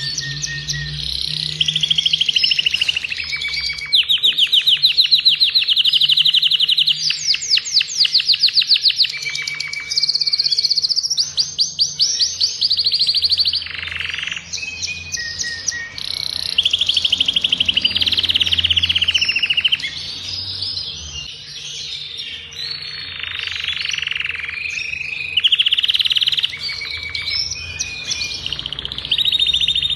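Adult male domestic canary singing a long, continuous song of fast trills and rolls. The song switches from one trill to another every second or two, some made of rapid rising notes, with brief lulls about halfway through.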